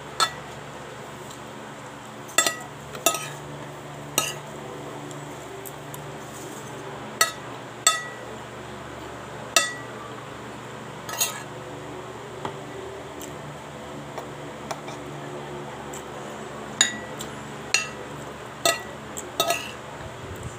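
Metal spoon and fork clinking and scraping against a plate while eating rice, about a dozen sharp clinks at irregular intervals, each with a brief ring. A low steady hum runs underneath.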